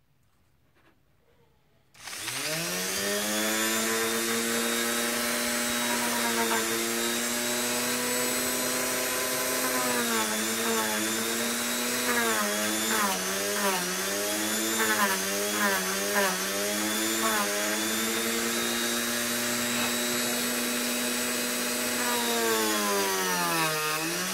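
Dremel rotary tool with a sanding drum switched on about two seconds in, spinning up to a steady high whine. From about halfway through its pitch dips again and again as the drum bears on the EVA foam and sands it down, with one deeper dip near the end.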